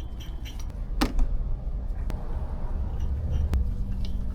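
Steel wheel studs and tools clinking against the hub: one sharp metallic clink with a short ring about a second in, then a couple of fainter clicks, over a steady low rumble.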